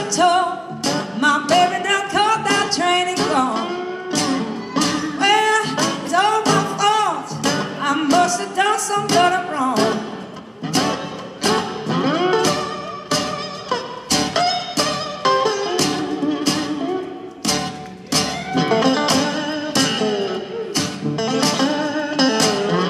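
Live blues band playing an acoustic number: acoustic guitars lead, with melody notes bending up and down in pitch over the band.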